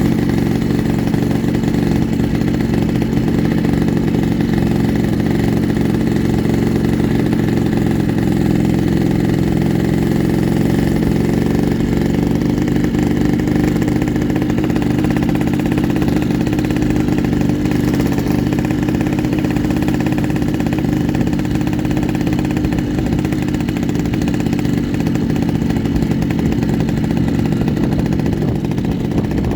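Yamaha RX-King's single-cylinder two-stroke engine running steadily with a rough, 'snoring' (ngorok) exhaust note that holds a fairly even pitch and loudness throughout.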